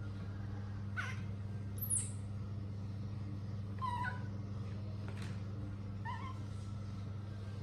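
A baby monkey gives a few short, high-pitched squeaks spaced a second or two apart, one very shrill, over a steady low hum.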